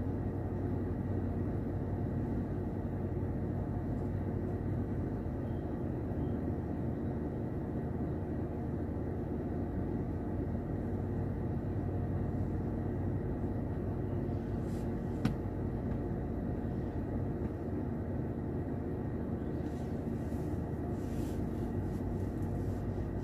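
Steady low hum with a few constant tones inside a car's cabin, and one faint click about fifteen seconds in.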